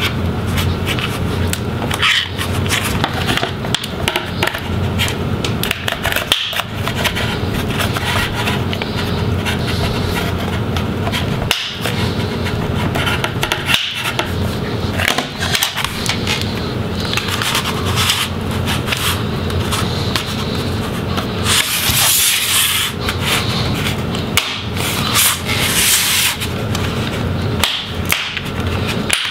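Plastic display bezel of a laptop being pried and worked loose from the lid's back cover by hand: continuous scraping and rubbing with many small clicks, and a couple of sharper hissing scrapes in the second half.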